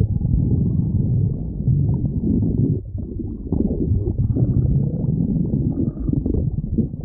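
A woman's stomach growling, with low, continuous rumbling and gurgling and a brief lull about three seconds in.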